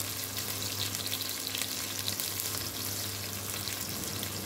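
Chopped onion frying in hot oil in a pot, a steady crackling sizzle with scattered pops as it browns. A steady low hum runs underneath.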